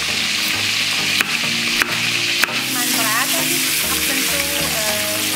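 Tofu cubes sizzling as they fry in hot oil in a wok and are stirred with a spatula. There are a few sharp clicks in the first half, and the sizzle grows louder about halfway through.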